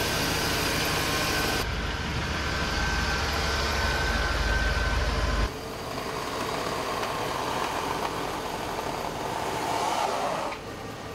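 Engine of a Suburban SUV running, heard in cut-together clips: the sound changes abruptly about two seconds in and again about halfway through, is quieter in the second half, and fades near the end.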